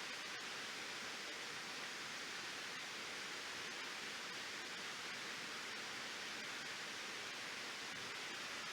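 Waterfall: water pouring and splashing in a steady, even rush that does not change.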